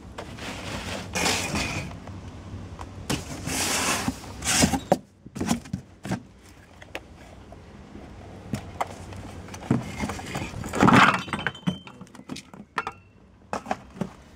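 Handling noise: rustling in bursts of a second or two, the loudest about four seconds in and near eleven seconds, with many scattered knocks and clinks of hard resin orgonite pieces against a metal muffin tin.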